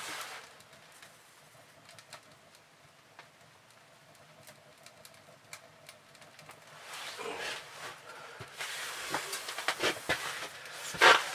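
Newly lit wood fire in a tent wood stove crackling with scattered sharp pops, growing louder and busier in the second half, with a loud noisy burst near the end.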